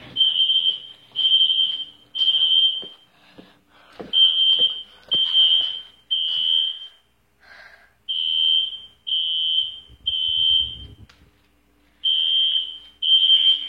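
Fire alarm horn sounding the temporal code-3 evacuation pattern: a high, steady beep about half a second long, three to a group with a short gap between beeps and a longer pause between groups, repeated about four times. It has been set off from a manual pull station.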